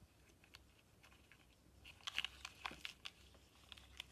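Faint crunching and snapping clicks as a pet turtle bites and chews a live freshwater shrimp. The clicks come in a cluster about two seconds in, with a few more near the end.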